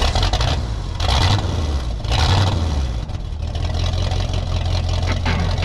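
A steady low engine-like rumble with two brief louder surges, about a second and about two seconds in.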